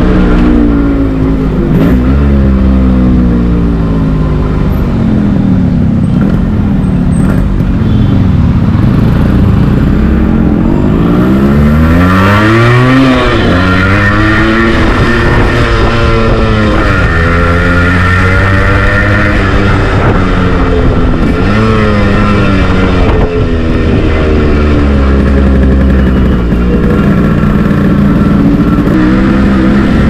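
Yamaha RX100's single-cylinder two-stroke engine revving up and dropping back again and again as the bike is ridden through the gears, with one sharp climb in revs about halfway through that falls away suddenly at a gear change.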